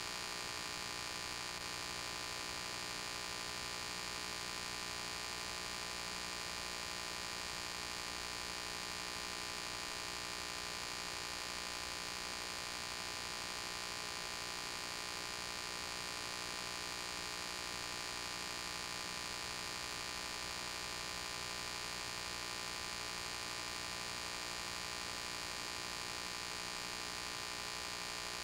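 Steady electrical hum with hiss, unchanging throughout, with no other sound on top.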